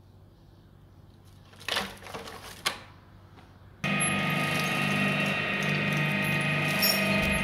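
Brief rustling with a sharp click, then at about four seconds an industrial twin-shaft shredder starts abruptly and runs steadily, its motor and rotors giving a loud hum with a whine.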